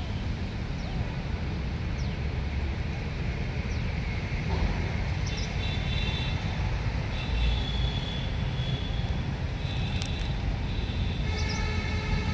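Young puppies whimpering: a few short high squeaks early on, then thin, high held whines from about five seconds in and again near the end. A steady low rumble runs underneath.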